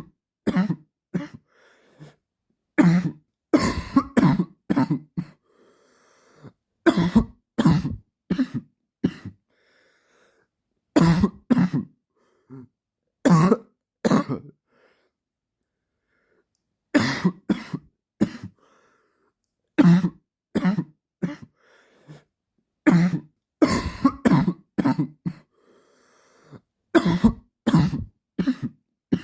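A man's persistent dry cough, coming in repeated bouts of two to four short coughs each, with silent pauses of a second or two between bouts.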